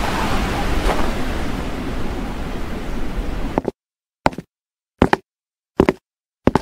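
Steady wind-like noise of a snowy blizzard that cuts off abruptly a little over three seconds in. It is followed by four evenly paced footsteps, about one every three quarters of a second.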